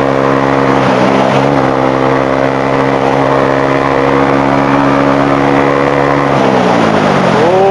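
150cc motorcycle engine pulling hard at high revs during a speed run, holding a steady pitch with a brief wobble about a second in. About six and a half seconds in, the revs fall away.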